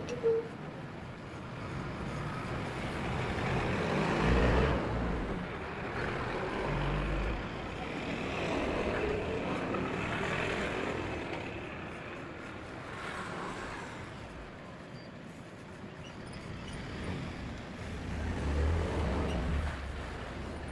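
Background rumble of road traffic, swelling three times as vehicles pass.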